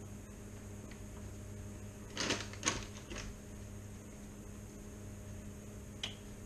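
A short cluster of knocks and clatters from kitchen things being handled about two to three seconds in, and a single click near the end, over a steady low hum.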